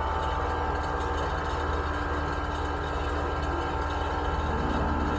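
Air-conditioning condensing unit running steadily, compressor and condenser fan humming, during a pump-down as refrigerant is pulled into the condenser with the service valve closed.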